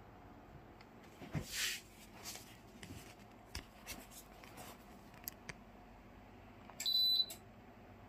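Small clicks and handling rustle from an air-conditioner remote being pressed, then near the end one short electronic beep, about half a second long, from a Panasonic split air conditioner's indoor unit. The beep is the unit acknowledging a remote command, here the command to switch off.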